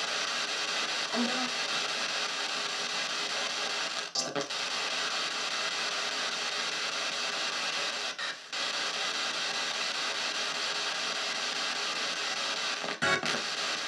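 P-SB7 spirit box sweeping through radio stations, played through small stereo speakers: a steady hiss of radio static with brief snatches of voice. The static breaks off in short dropouts three times, about 4, 8 and 13 seconds in.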